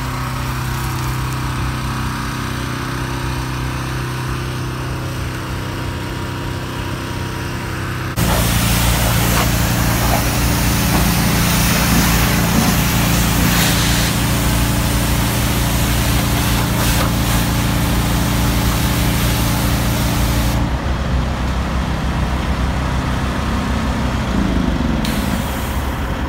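A pressure washer spraying water onto a semi truck's cab as a steady hiss, over an engine running steadily. The spray starts suddenly about 8 seconds in and cuts off about 21 seconds in, leaving the engine running alone.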